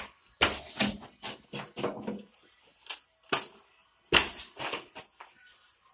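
Carpet being worked in along a wall by hand: a run of about ten irregular sharp thuds and scuffs, the loudest a little past four seconds in.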